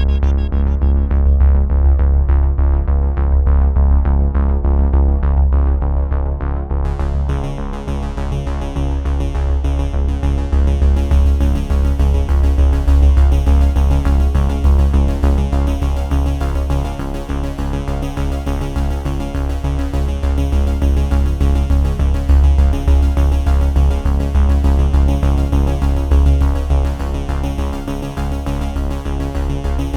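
Background electronic music with synthesizer, a heavy bass line and a steady beat; the high end fills out about seven seconds in.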